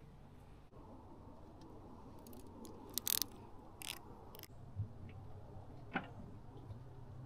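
A few short, sharp clicks and rustles in a cluster in the middle, then one more click about six seconds in, over a faint low hum.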